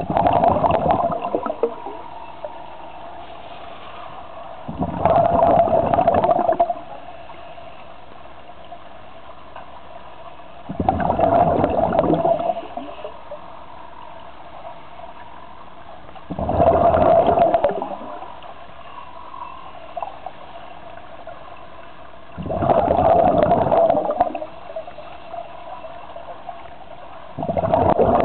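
A scuba diver exhaling through a regulator underwater: a rush of bubbles lasting about one and a half to two seconds, repeating about every five to six seconds with each breath, over a steady low underwater hum.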